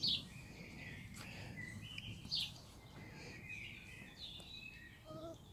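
Small songbirds chirping and twittering, with two louder chirps, one at the start and one about two and a half seconds in.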